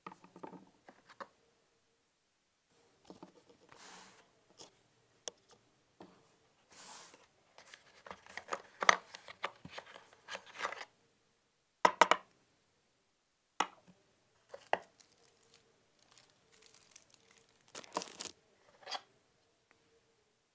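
Hands handling small plastic camera mounts and packaging: crinkling and tearing of plastic wrap with sharp clicks and knocks of hard plastic parts, in irregular bursts.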